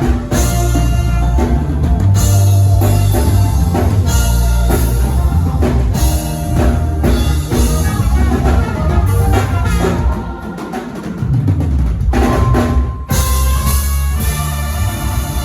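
Loud band music led by a full drum kit, with heavy bass. The bass drops away for a moment about ten seconds in, and the music breaks off briefly about three seconds later.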